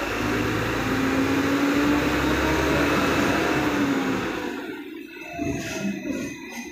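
Hong Kong double-decker electric tram running along its street track: steady rumble of the wheels on the rails with a motor whine that rises and then falls, the noise dying down after about four and a half seconds.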